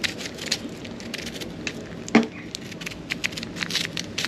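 Cooking fire crackling, with irregular sharp pops over a steady low hum, and one louder knock about two seconds in.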